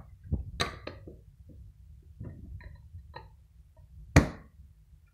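Kitchen handling noises around a plate on a stone countertop: a few scattered light knocks and clicks, then a louder knock about four seconds in, over a faint low hum.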